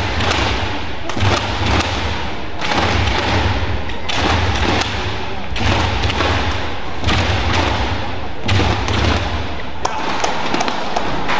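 Badminton rally: sharp racket strikes on the shuttlecock about every second and a half, with thuds of the players' footwork on the court and a background of crowd voices in the hall.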